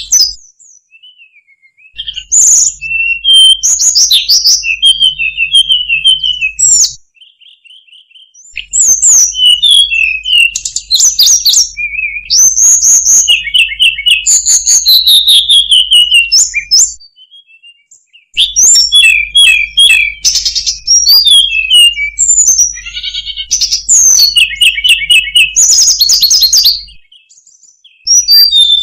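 Hill blue flycatcher song: long bouts of rapid, varied, high-pitched warbling and trills, broken by pauses of about a second or two.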